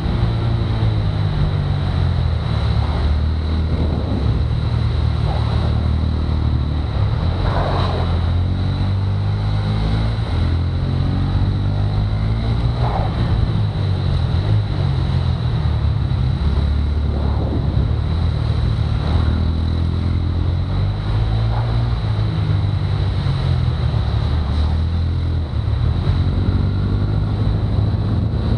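Go-kart engine heard from a camera mounted on the kart, revving up along the straights and dropping back into the corners, again and again through the laps, with a thin steady high tone running underneath.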